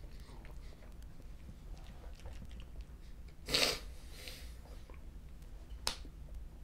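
A man eating spicy ramen: faint chewing and mouth sounds, with one short, sharp rush of breath about three and a half seconds in and a small click near the end.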